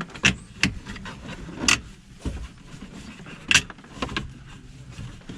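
A series of sharp clicks and knocks, about five of them spread unevenly, from parts and tools being handled during work on a car's interior.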